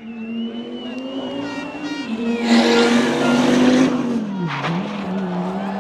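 Rally car engine running hard with a steady, slightly rising note, a loud rush of noise from about two and a half to four seconds in as it goes by, and a brief dip and recovery in engine pitch about four and a half seconds in.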